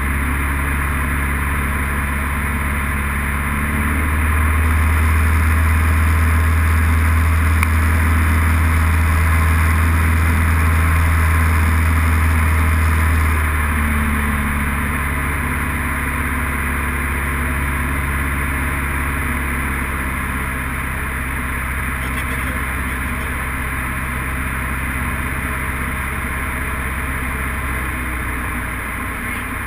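Single-engine light aircraft's piston engine and propeller droning steadily, heard inside the cockpit with steady air rush. The drone grows louder about four seconds in and eases back to a lower level around thirteen seconds.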